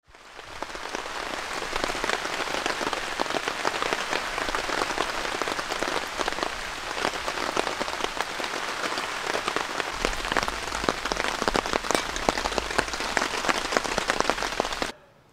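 Steady rain falling, with many separate drops ticking sharply on a surface close by. It fades in at the start and cuts off abruptly near the end.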